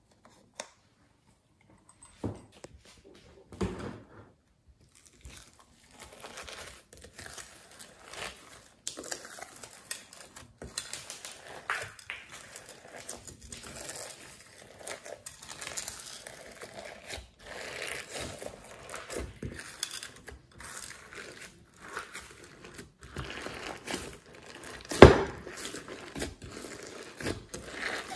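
White slime loaded with sequins and beads being squeezed and kneaded by hand in a glass dish: a continuous sticky crackling and crinkling with small clicks, starting after a few near-quiet seconds. About 25 seconds in, one loud sharp pop, typical of an air pocket bursting in the slime.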